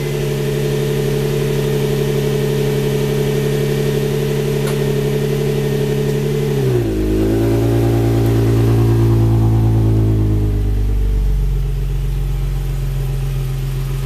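Nissan 350Z's 3.5-litre V6 idling through Motordyne Art Pipes and stock mufflers just after startup: a steady fast idle that drops sharply about seven seconds in, wavers, and settles to a lower, steady idle.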